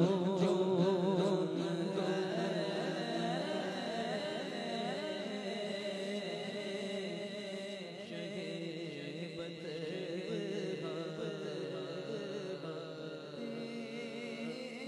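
A man singing a naat into a microphone, drawing out long wavering notes through echo. The singing is loudest at the start and fades gradually toward the end.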